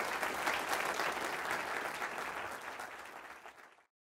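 Audience applauding, the clapping slowly dying down and then cutting off abruptly near the end.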